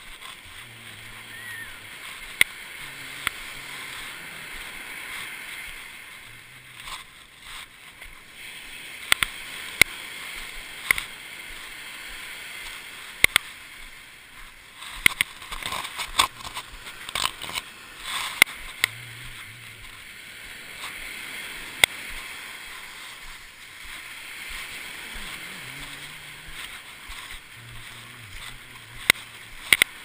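Surf washing on the shore as a steady rush, heard through a waterproof GoPro housing, with irregular sharp clicks and knocks from the housing swinging on its neck cord.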